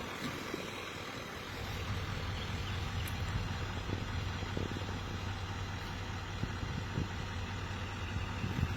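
GMC Sierra Denali HD pickup's engine idling, a steady low hum that sets in about a second and a half in.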